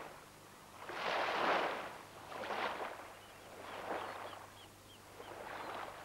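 Water surging and splashing around a torn yellow raft in choppy sea, coming in swells about every one and a half seconds. A run of short high falling chirps comes through in the middle.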